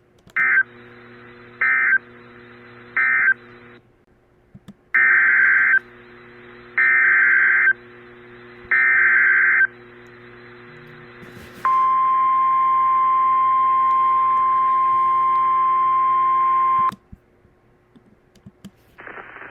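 Emergency Alert System SAME data bursts: three short harsh warbling digital bursts ending one alert, then three longer bursts of about a second each carrying the header of the next alert. These are followed by the steady single-pitch 1050 Hz weather radio attention tone, which holds for about five seconds and cuts off abruptly.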